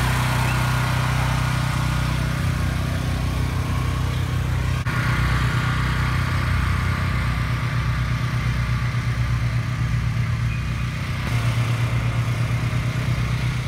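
Car engine idling with a steady, rhythmic pulsing rumble. The sound shifts slightly about five seconds in and again near the end.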